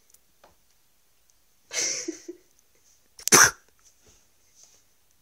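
Pit bull making two short, sharp bursts of breath while chewing her toy, a softer one about two seconds in and a louder one about three and a half seconds in, with quiet between.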